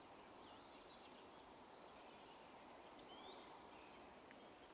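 Near silence: faint outdoor ambience with two faint bird chirps, one about half a second in and a short rising one a little past three seconds.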